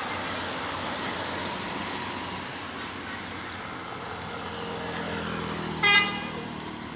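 Road traffic with a vehicle engine drone building from about halfway, then one short, loud toot of a bus's telolet horn about six seconds in.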